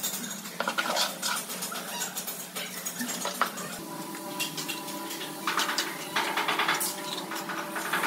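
Tiling work: repeated clinks, taps and scrapes of hand tools against ceramic tile and mortar.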